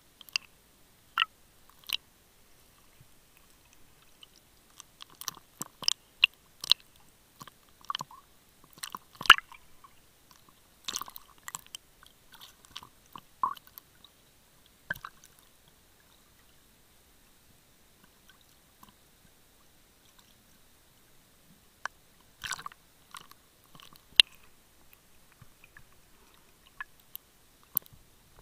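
Underwater clicking and crackling: sharp irregular clicks in clusters, with a quiet stretch in the middle and the loudest click about nine seconds in.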